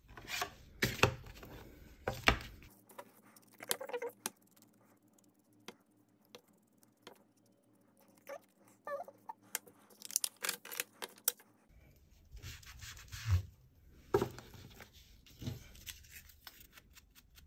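Die-cut cardstock feathers rustling and being scraped in short, scratchy strokes as their edges are distressed with a hand tool. There is a quieter lull in the middle, then denser scraping and rubbing.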